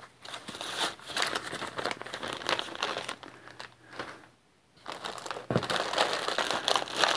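Clear plastic parts bags crinkling and rustling as hands sort through them, with a short pause about four seconds in.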